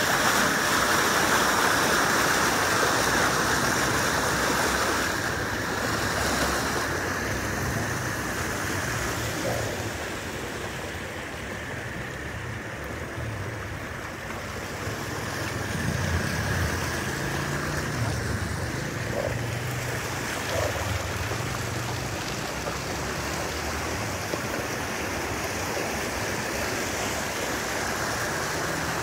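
Steady rush of heavy rain and floodwater splashing under a moving car's tyres, loudest in the first few seconds. A low engine hum swells under it about halfway through.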